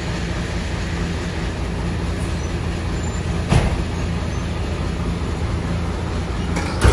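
Bus diesel engine idling steadily, with two sharp knocks: one about halfway through and one at the end.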